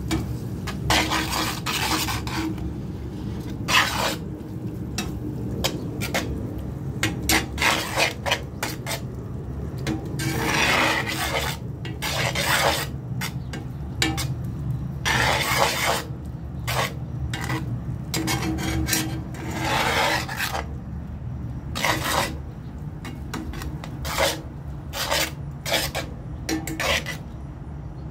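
A utensil stirring and scraping scrambling eggs in a cast-iron skillet, in irregular strokes with a light sizzle, over a steady low hum.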